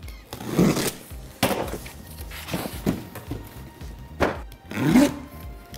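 Utility knife cutting the packing tape on a cardboard box, followed by the cardboard box and its flaps being handled with several dull thuds and scrapes.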